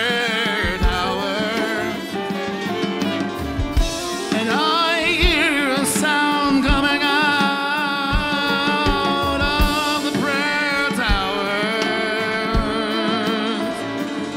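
Live worship band playing slow spontaneous worship music, with a drum kit beneath singing and a wavering melody line.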